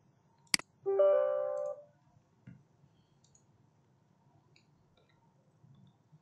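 A mouse click about half a second in, then a short computer chime of several held notes lasting just under a second. After that, faint room tone with a few soft ticks.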